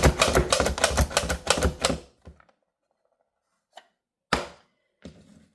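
A garlic clove being chopped in a fast run of sharp strikes, about eight a second, that stops about two seconds in. A faint click and then one sharper knock come near the end.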